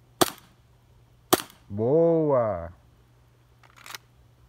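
Two shots from an Umarex Glock G19X airsoft pistol, each a single sharp crack, about a second apart.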